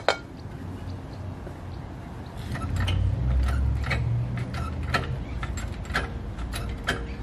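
Hydraulic floor jack being pumped by its handle: a run of sharp metallic clicks, about one every half second to second, starting about two and a half seconds in. A low rumble swells underneath for a couple of seconds.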